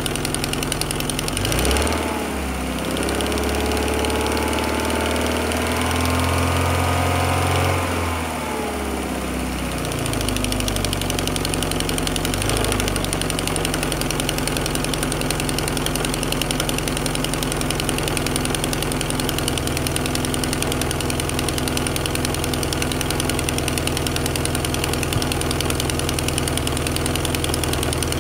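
Vauxhall Cavalier's 2.0-litre X20XEV Ecotec 16-valve four-cylinder engine running while its cooling system is bled after a thermostat change. About a second and a half in it is revved up and held for about six seconds, then drops back to idle. A short blip follows a few seconds later, and after that it idles steadily.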